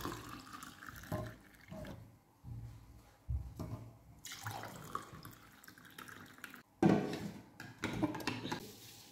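Milk being poured from a steel vessel into glasses, one glass after the other. A sharp knock about two-thirds of the way through is followed by a few smaller knocks.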